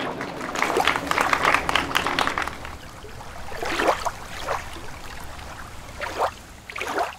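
Applause from a small audience, dense for about three seconds and then thinning out to a few scattered sounds.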